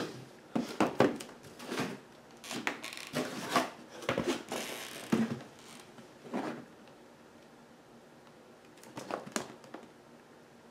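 Packaging being handled while a powerline adapter is unboxed: irregular rustling, scraping and clicks, with a longer rustle about halfway, then it goes quieter with a few clicks near the end.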